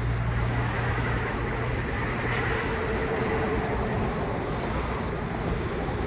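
Steady outdoor background noise with a low hum that fades out a little before halfway through.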